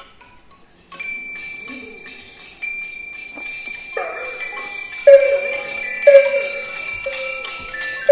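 Children's bell and chime ensemble playing: jingling bells and chimes shimmer over a held high ringing note, and from about four seconds in, struck bell-like notes ring out about once a second, the loudest sounds.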